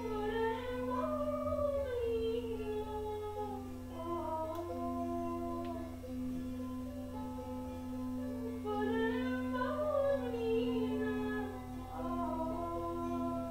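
A voice humming a slow, wordless melody in long, sliding phrases over a steady drone held on one low note.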